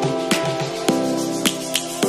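Instrumental background music: held chords with a sharp clap-like hit about every 0.6 s, three in all.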